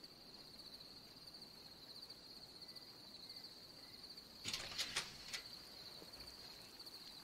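Quiet night ambience with crickets trilling steadily and high. About four and a half seconds in, four sharp taps come in quick succession.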